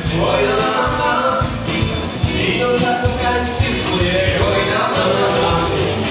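Dance band music with singing over a steady beat of bass and drums.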